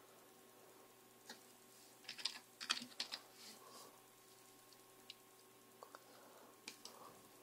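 Computer keyboard being typed on, faint: a quick run of about half a dozen keystrokes about two seconds in, then a few single clicks.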